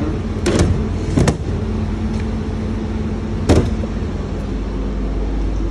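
Bus engine running steadily at fast idle, with three sharp knocks spread through it.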